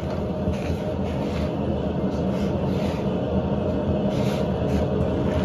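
Wok of water at a rolling boil over a lit gas burner, a steady rumble and bubbling, with a few light scrapes and splashes as a perforated steel strainer lifts blanched potato shreds out of the water.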